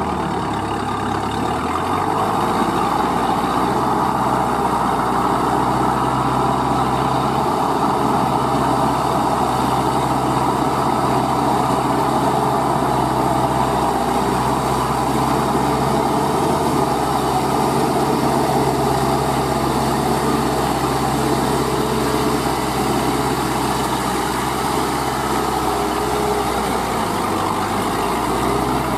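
Diesel engine of a crawler-track paddy tiller running steadily under load as it tills a flooded rice field. Its note shifts slightly about two seconds in and again near the end.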